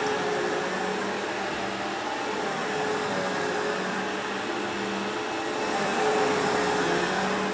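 Vacuum cleaner running steadily: an even rush of air with a faint steady whine.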